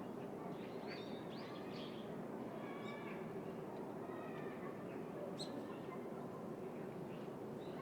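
Small birds chirping here and there over a steady background hum of the city.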